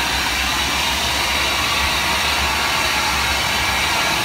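Hand-held hair dryer blowing steadily on damp hair: an even rush of air with a thin steady whine in it.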